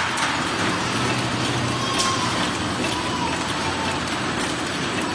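Horizontal flow-wrapping (pillow-pack) machine running steadily, with a few sharp clicks.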